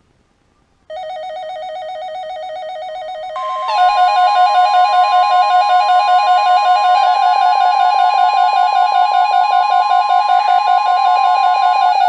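Weather radio alert: a rapidly warbling alarm tone starts about a second in. About three seconds later the steady 1050 Hz NOAA Weather Radio warning tone joins it and the sound gets louder. The steady tone stops just before the end while the warble goes on, heralding a severe thunderstorm warning.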